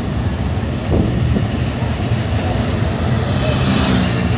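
Steady, loud rumble of a moving vehicle heard through an open window, with a few faint clicks. Near the end a road vehicle passes close the other way with a brief whoosh.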